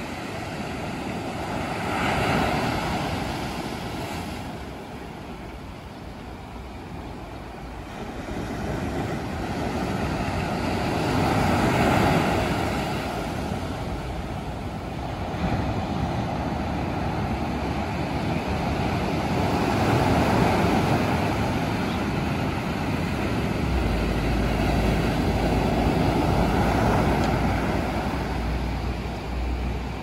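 Sea surf breaking over rocks and washing up a sandy beach, swelling and falling in slow surges about every eight to ten seconds. A low steady rumble joins in the last few seconds.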